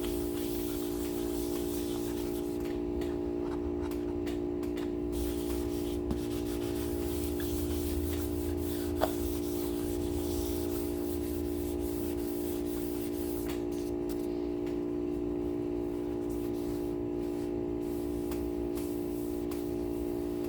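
Fine-grit wet sanding, paper rubbed lightly over a lacquered guitar body with soapy water, over the steady buzzing hum of an old chest deep freezer's compressor. The freezer runs almost constantly, which the owner takes as a sign it is giving out.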